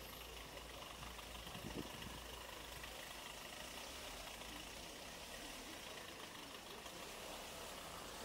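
Quiet city street ambience: a steady faint hum of traffic with a low rumble, and a single soft thump about two seconds in.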